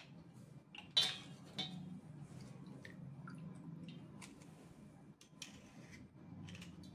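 A small serrated knife scraping and tapping on a wet block of slate pencil over a steel plate of water, in scattered short strokes with a sharp knock about a second in. A low steady hum runs beneath.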